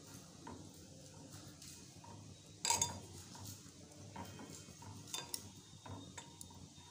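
A hand is stirring a thin besan (gram-flour) and water batter in a steel bowl, a soft wet swishing as the lumps are worked out for kadhi. A sharp clink comes a little under three seconds in, and lighter clicks follow around four to six seconds.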